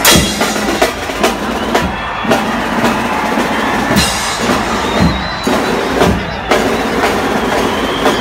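Drums beating heavy strokes in a loose rhythm, roughly one every half second to a second, each with a deep booming low end, over the dense noise of a big crowd.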